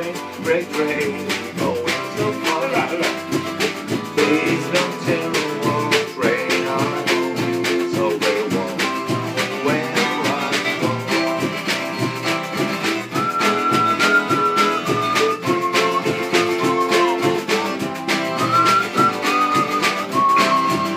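Amateur skiffle band playing a song, with guitar and a tea-chest bass over a steady percussive beat, and sustained melody notes coming in about halfway through.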